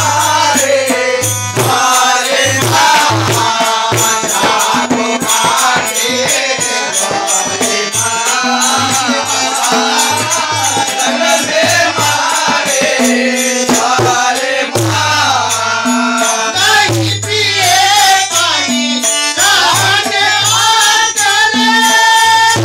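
A group of men singing a devotional Muharram rivayat to tabla and harmonium. Deep tabla bass strokes and sharp drum strikes keep a steady rhythm under the voices.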